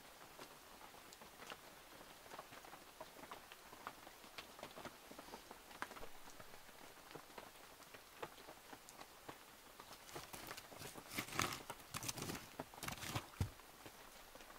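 Wood campfire crackling faintly with scattered small pops, then a louder run of crackling and popping about ten to thirteen seconds in, with a dull knock near the end.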